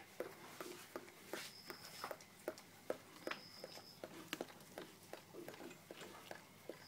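Handling noises around a border collie puppy being stroked and shifted in a crate: scattered soft taps, rubs and rustles on the mat and fur. A faint short high tone sounds twice, about a second and a half in and again past three seconds.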